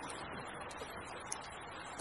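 Campfire crackling, with a few sharp, scattered pops, over the steady rush of a small creek.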